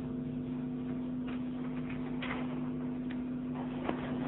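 A steady low hum with a few faint, irregularly spaced clicks over it.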